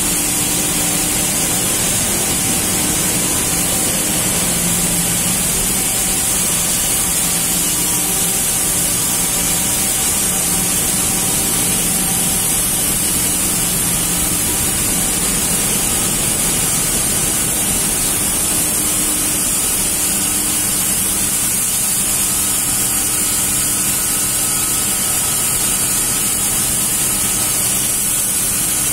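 Circular knitting machines running together in a knitting hall: a loud, steady mechanical din with a strong high hiss and a low hum.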